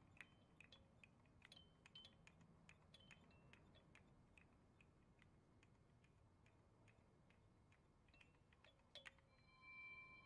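Faint, irregular tinkling clicks of small pieces of shattered car windshield glass settling after a crash. They come thickly at first, thin out, then gather briefly again near the end.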